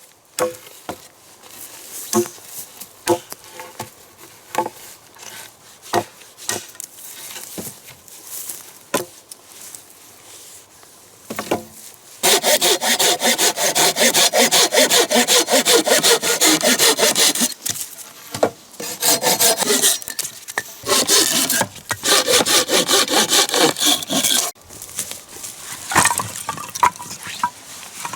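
Dry branches being cut by hand with a Samurai pruning saw. Scattered knocks of wood being handled come first; then, about halfway in, a loud stretch of fast, steady saw strokes lasting some twelve seconds with two brief breaks, followed by more knocks.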